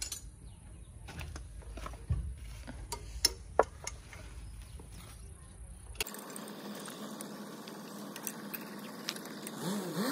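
Scattered sharp clicks and knocks of hand tools on metal engine parts over a low rumble, the loudest two a little after three seconds in. About six seconds in the sound cuts abruptly to a steadier hiss.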